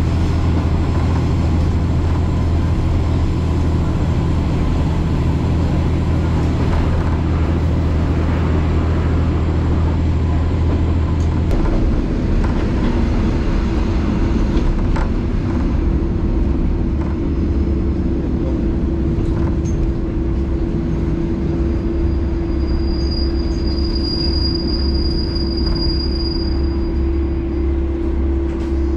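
Diesel railcar heard from inside the cabin, running with a steady low engine drone. About eleven seconds in the engine note changes to a lower, steadier hum as the train eases off. A thin high squeal lasts a few seconds near the end as it slows into a station.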